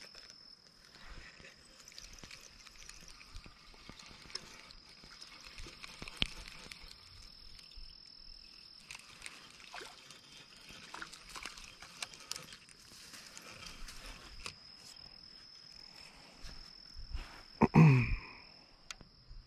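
Steady high-pitched drone of insects, with scattered small clicks and rustles of handling over it. Near the end comes a short, loud, voice-like sound that falls in pitch.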